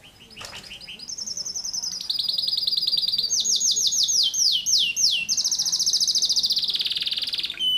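Domestic canary singing a long, loud song in rapid-fire "tembakan rapat" style. Fast trills of tightly packed repeated notes lead into a run of down-slurred notes in the middle, then a fast buzzing trill that stops shortly before the end.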